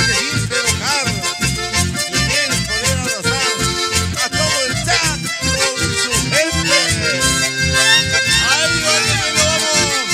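Live band music led by button accordions, with acoustic guitar and a steady low beat.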